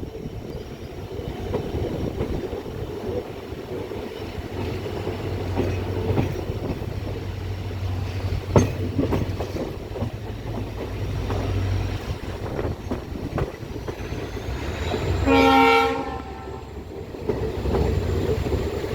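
A train running with a steady rumble and wheel clatter, and one short horn blast about fifteen seconds in.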